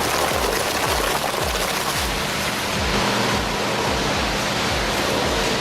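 Background music with a steady beat over a loud, steady rushing noise.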